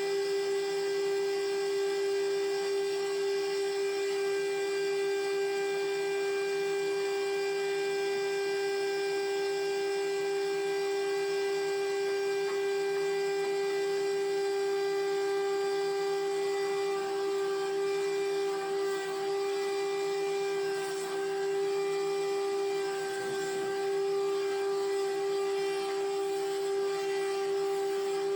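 Sawmill machinery running steadily with a constant high-pitched whine that holds one pitch throughout.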